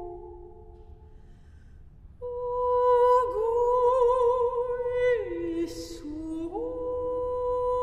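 Unaccompanied mezzo-soprano voice singing slow, sustained notes with vibrato. A held note fades out in the first second, and after a short pause a new long note starts about two seconds in. It dips and rises in pitch, with a brief breathy hiss near the six-second mark.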